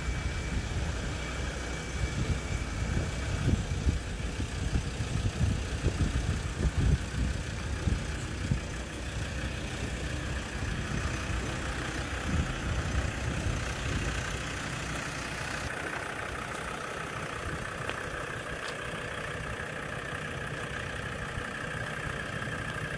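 Land Rover Discovery ambulance's engine idling steadily. Gusty rumble on the microphone through the first half, then a more even sound.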